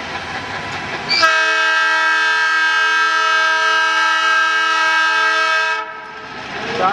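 Diesel locomotive's horn sounding one long blast of several tones together, starting about a second in and cutting off after about four and a half seconds. The locomotive's engine rumbles before and after the blast, working hard and throwing out black exhaust as it hauls the train.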